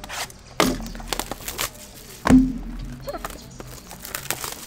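Cardboard trading-card hobby boxes being handled and set down on a table: a few knocks, the loudest a dull thump about two seconds in, with lighter clicks and plastic shrink-wrap rustling between.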